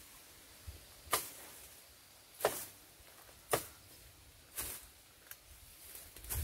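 A blade slashing through grass and weeds, one sharp swish about once a second, as the overgrowth is cut back by hand.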